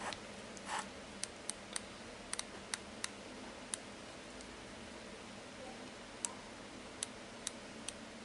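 A dozen or so light, sharp clicks at irregular intervals, bunched in the first few seconds with a few more near the end. They come from the GM328 transistor tester's menu control being worked to scroll through its menu.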